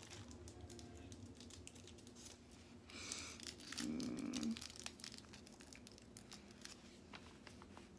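Small plastic bags of diamond-painting drills crinkling and rustling as they are picked up and handled, with scattered light ticks. The handling is louder about three to four and a half seconds in, where there is also a short low hum.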